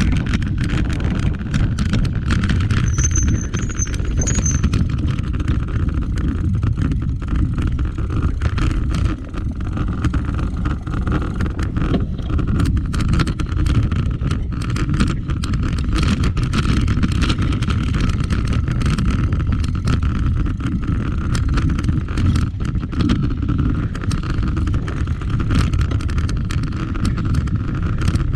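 Mountain bike with knobby Maxxis Ardent tyres riding over a dry dirt trail, heard from a handlebar-mounted camera: a steady low rumble of rolling and wind on the microphone, with frequent rattles and clicks as the bike runs over bumps.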